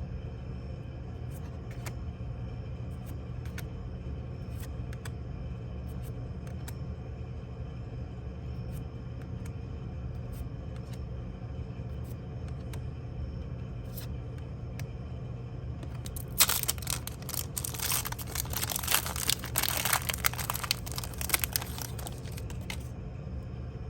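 Foil trading-card booster pack being torn open and crinkled: a loud crackling tear-and-crinkle lasting about six seconds, starting some two-thirds of the way in, over a steady low hum. Faint scattered clicks come before it.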